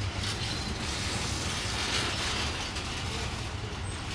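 Container freight train's loaded flat wagons rolling past on the rails: a steady rumble and rush of wheels on track.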